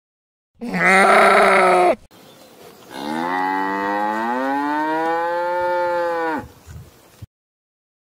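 A goat bleats once, loudly, for about a second and a half near the start. Then a Highland cow moos one long call of about three and a half seconds, its pitch rising and then levelling off.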